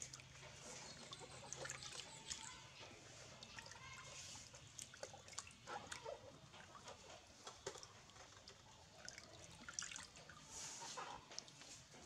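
Faint splashing and sloshing of water in a plastic basin as a baby monkey is washed by hand, with scattered small drips and clicks.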